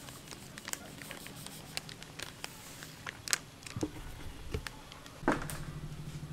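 Dry breadcrumbs pouring from a plastic bag onto a metal tray, a light patter of many small ticks over a faint hiss. A couple of soft thuds follow, then a louder knock near the end, after which a steady low hum with a fast pulse sets in.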